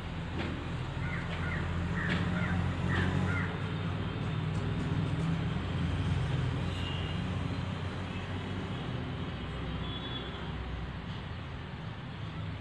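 Outdoor ambience: a low rumble that swells over the first few seconds and then eases off, with a few short bird calls about a second to three seconds in.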